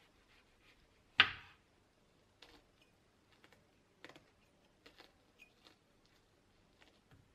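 A kitchen knife cuts through a round zucchini and knocks once on the wooden cutting board about a second in. Then a melon baller scrapes and scoops out the zucchini's flesh in a series of soft, irregular clicks and scrapes.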